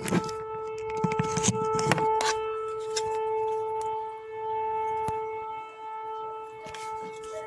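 Air-raid siren sounding one long, steady tone of an air-raid alert, fading briefly about five to six seconds in. A few knocks sound over it in the first two seconds.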